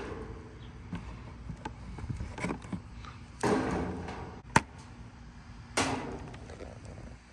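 Handling noises of unboxing a toy figure: scattered knocks and rustles, two longer scraping rustles, and one sharp click in between that is the loudest sound.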